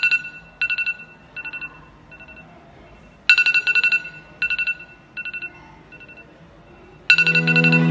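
Smartphone ringing: a quick trilling electronic tone in phrases that recur about every three and a half seconds, each phrase fading away in three quieter repeats. Music comes in with the third ring near the end.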